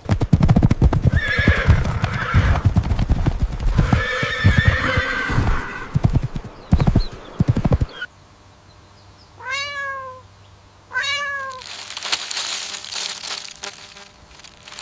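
A horse whinnying twice over hoofbeats for the first half, then two separate cat meows, each rising and falling in pitch.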